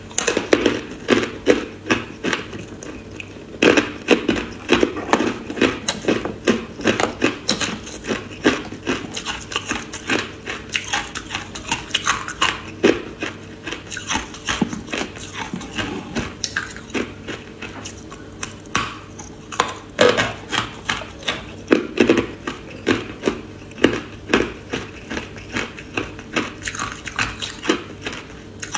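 Close-miked crunching of hard ice pieces coated in matcha powder as they are bitten and chewed: a steady run of sharp crunches, a few a second.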